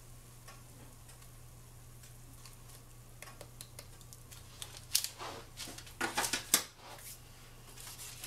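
Kitchenware being handled on a counter: a few light clicks and knocks in the second half, over a low steady hum.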